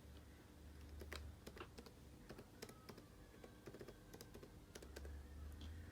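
Faint typing on a 15-inch MacBook Pro's butterfly-switch keyboard: irregular key clicks throughout.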